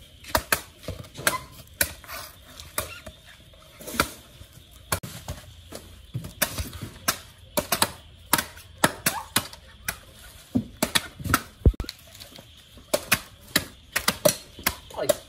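A large knife chopping into the fibrous husks of green coconuts: sharp, irregular chops, often several in quick succession.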